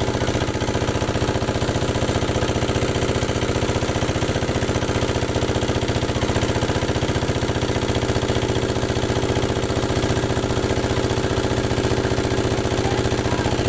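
Motor boat's engine running steadily at an even speed, an unchanging mechanical drone, over a hiss of wind and water.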